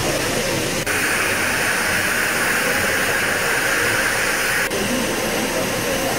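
X-class steam locomotive standing in steam, with a steady hiss; a louder, higher hiss of escaping steam starts abruptly about a second in and cuts off abruptly near five seconds.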